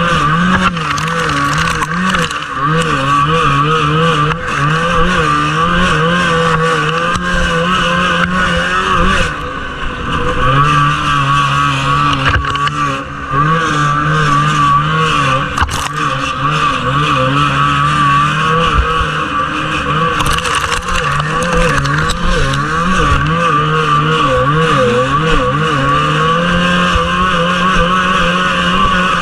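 Onboard sound of a 1979 Arctic Cat Jag 3000 snowmobile's two-stroke engine racing, its pitch rising and falling constantly with the throttle. The throttle is backed off briefly about a third of the way in and again just after.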